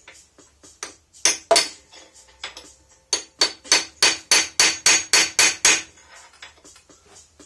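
Metal hammer blows bending over the tab of a new sprocket-nut lock washer. There are two ringing strikes, then a quick run of about ten lighter taps at roughly four a second.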